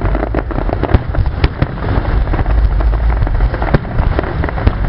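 Fireworks display: many shells bursting in quick succession, a dense run of sharp bangs and crackles over a continuous low rumble.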